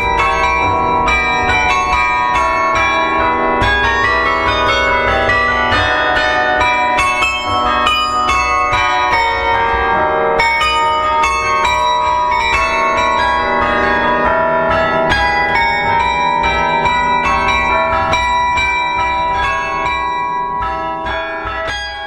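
Carillon of church bells playing a melody with chords, many struck notes ringing on over one another; the playing fades away near the end.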